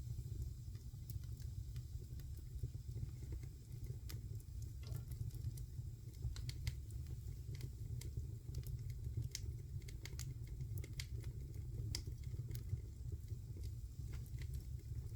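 Wood fire in a fireplace crackling: scattered sharp snaps and pops, irregular and several a second at times, over a steady low rumble of the flames.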